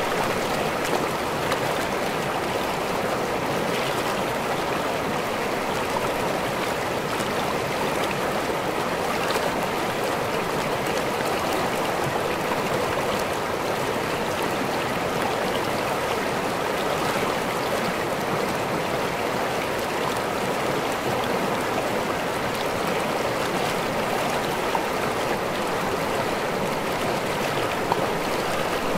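Small waterfall pouring into a river: steady rushing and splashing of falling water, with fine bubbling and trickling over it.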